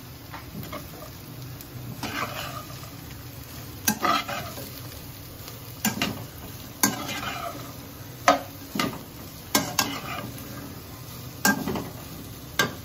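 Vegetables stir-frying in a wok, a steady sizzle under a metal slotted spatula that scrapes and knocks against the pan. The spatula strikes the wok sharply about nine times at uneven intervals.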